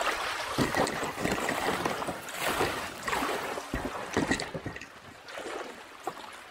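Shallow river riffle rushing and splashing against the hull of a kayak running down it, with frequent short slaps of water close to the microphone. The rush drops off about four and a half seconds in as the water calms.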